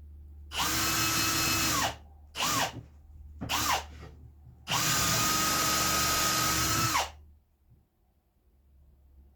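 Power drill boring into wood in four runs: a run of about a second, two short blips, then a longer run of about two seconds, each whine climbing quickly to a steady pitch and dropping away as the trigger is released.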